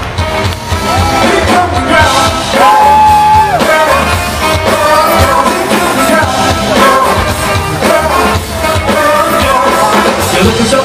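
Live funk band playing at full volume, with drums, bass, electric guitars, saxophone and singers, heard from the audience. A single note is held for about a second around three seconds in.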